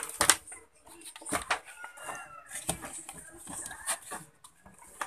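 Clicks, knocks and light clatter from handling a TV's circuit board and its parts during a repair, with a faint drawn-out call in the background a little past the middle.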